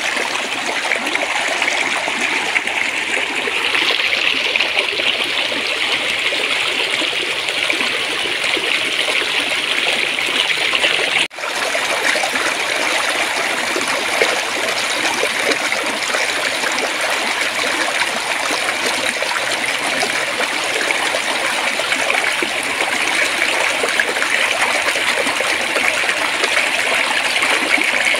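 Clear, gently running stream babbling and trickling steadily, with a momentary break in the sound about eleven seconds in.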